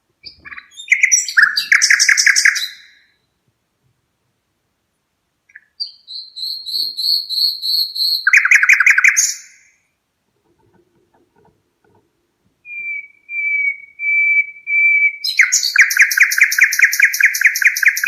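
Red-rumped parrot singing: three bursts of high whistles and rapid trills with pauses between them. The last starts with a held steady whistle and breaks into a fast trill.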